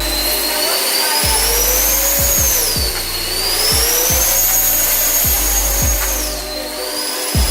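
Remote-control aircraft motor and propeller whining, its pitch rising, dipping about three seconds in, rising again and falling near the end, over background music with a beat.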